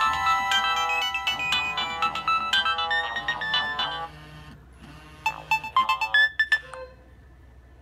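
Nokia 1600 mobile phone ringtones: a fast electronic melody of short beeping notes that drops away about four seconds in, followed by a brief run of notes that stops shortly before the end.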